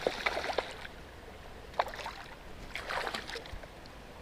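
Light knocks and clicks of handling on a kayak over faint moving water, with one sharper click a little under two seconds in.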